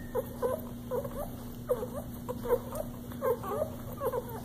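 A litter of young puppies squeaking as they nurse, short high squeaks coming two or three times a second.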